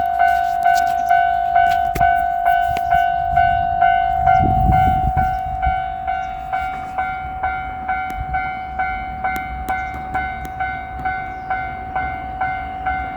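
Japanese railway level crossing alarm ringing, a steady high clanging tone struck about twice a second and slowly getting quieter.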